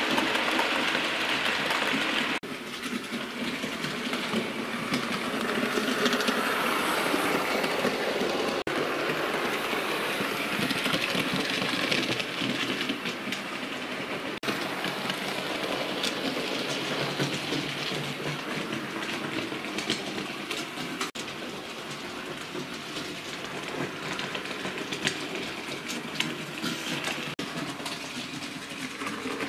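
OO-gauge model trains running on the layout's track: the small electric motors whirring and the wheels clicking over the rails, steady throughout.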